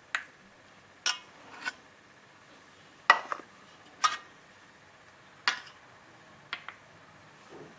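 Stainless steel bowls clinking against a steel plate as they are lifted off and set down, about nine separate sharp clinks with a short metallic ring, the loudest about three seconds in.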